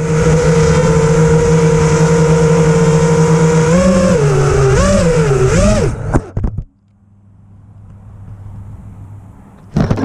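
FPV racing quadcopter flying close by, its motors and props making a steady buzzing hum that then wavers up and down in pitch with the throttle before cutting off sharply about six seconds in with a few clicks. Only a faint hiss follows, then a brief loud burst near the end.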